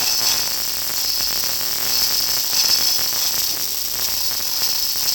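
MIG welding arc burning steadily, a continuous crackling hiss, as thin-wall square tubing is welded to quarter-inch steel plate.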